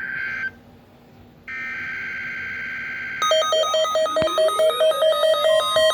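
Emergency Alert System SAME header data bursts: a screechy two-tone digital warble that ends about half a second in, then another from about one and a half to three and a half seconds in. From about three seconds in, a louder, rapidly alternating pattern of alert tones with rising sweeps layered over it takes over.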